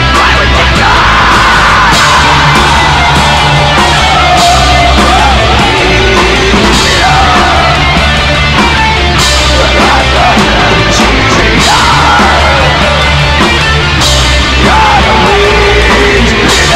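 Loud heavy rock song with yelled vocals over a dense, continuous band backing.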